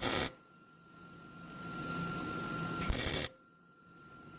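Millermatic MIG welder striking its arc in two short bursts, one at the start and one about three seconds in, laying a weld build-up onto a broken exhaust manifold bolt stub.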